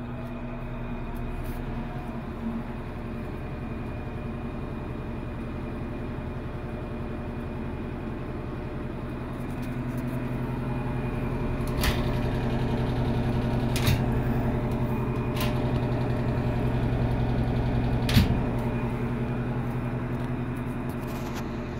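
Whirlpool top-load washing machine running: a steady motor hum that grows louder about ten seconds in, with a few sharp clicks over the next several seconds.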